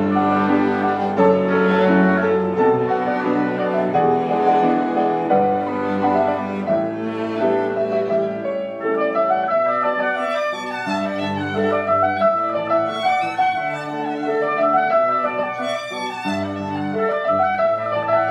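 Live chamber music: violin and cello playing sustained lines over piano. About halfway through, the music moves higher and brighter.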